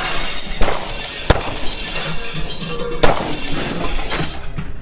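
A series of sharp smashing blows with glass breaking and crashing after them: about three hard hits, roughly half a second, one and a half seconds and three seconds in, the first and last the loudest.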